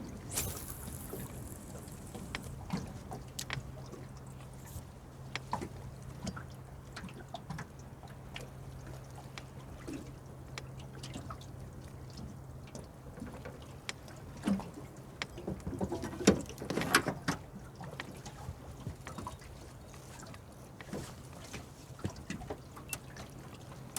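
Water trickling and a faint steady low hum, with scattered light clicks and a cluster of louder knocks and handling noises past the middle.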